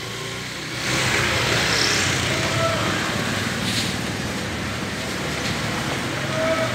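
Street traffic noise: a motor vehicle running close by, a steady rush that swells about a second in, with a single knock a little before four seconds in.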